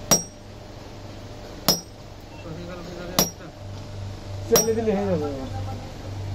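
Hand hammer striking a sickle blade on a blacksmith's anvil: four sharp, ringing metal blows about a second and a half apart.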